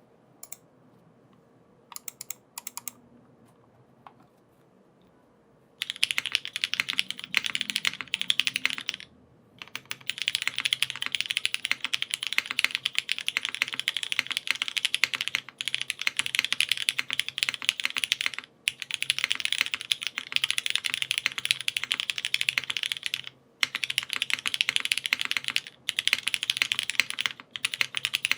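Typing on a custom mechanical keyboard with lubed Cherry MX Black Hyperglide linear switches, GMK keycaps, an aluminium plate and a full brass bottom case. A few single keystrokes come first, then fast runs of typing from about six seconds in, broken by short pauses.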